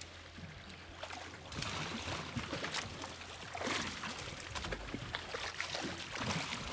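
Live kahawai bait splashing and thrashing at the water's surface beside a boat, several short splashes over a steady wash of water.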